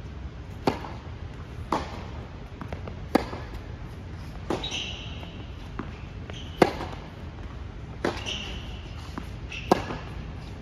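Tennis serve and baseline rally on an indoor hard court: seven sharp pops of the racket striking the ball, about one every one and a half seconds, with fainter ball bounces between them. Tennis shoes squeak on the court in the second half.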